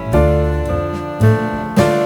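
Instrumental background music led by piano or keyboard, with a bass line under it.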